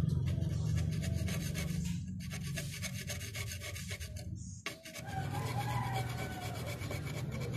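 A tool scraping and rubbing inside a truck's brake drum in fast, even strokes, breaking off briefly about four and a half seconds in.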